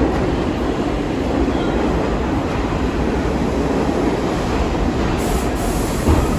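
New York City subway trains in an underground station: a steady, loud rumble from a train standing at the platform and another moving in on the far track.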